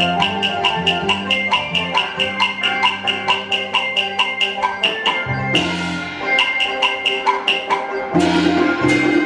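Taiwanese opera accompaniment playing an instrumental passage: a fast, even wooden clapper beat of about six strikes a second over melodic instruments. The low instruments drop back about five seconds in and return louder near the end.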